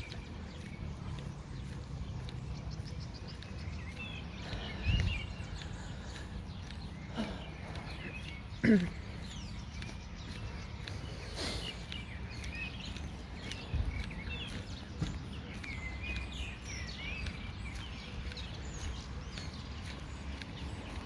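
Small birds chirping and calling in the trees over a steady low outdoor rumble, with a few sudden knocks, the loudest about nine seconds in.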